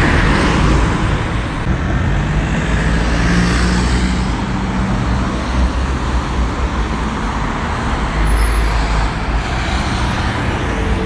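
Road traffic: cars driving past close by on a city street, with a steady noise of engines and tyres that swells slightly as each one passes.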